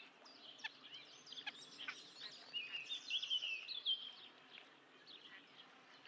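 Small songbirds singing: scattered high chirps and a short warbling phrase about halfway through, over faint outdoor background noise.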